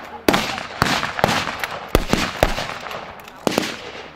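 Gunfire from rifles firing blanks: about seven irregularly spaced shots in four seconds, each a sharp crack with an echoing tail.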